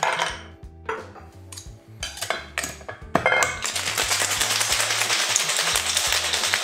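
Ice cubes clinking into a Boston shaker's mixing glass and the metal tin being pressed on, then, from about three and a half seconds in, ice rattling hard and fast inside the sealed shaker as it is shaken.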